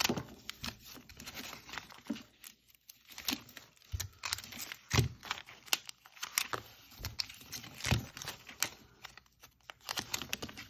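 Adhesive paper name labels being peeled off a backing strip and pressed onto foil booster pack wrappers: irregular peeling rips, crinkling of the foil packs and light taps.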